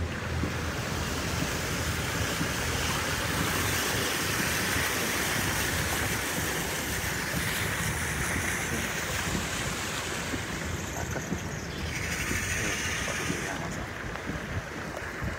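Heavy tropical downpour: rain falling hard in a steady, dense hiss.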